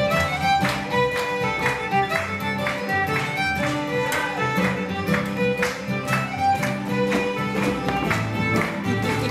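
Ceilidh band playing a dance tune, a fiddle carrying the melody over a steady beat.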